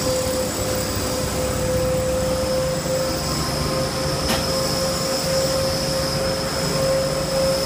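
Steady mechanical hum with an even, high whine that does not change, over a low rumble.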